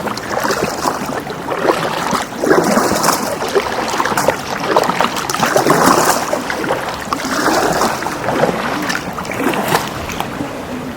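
Water splashing and sloshing around a sea canoe as it is paddled, rising and falling irregularly.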